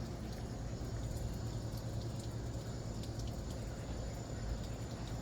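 Faint steady outdoor background: a low hum with a thin, steady high-pitched tone above it and a few faint ticks.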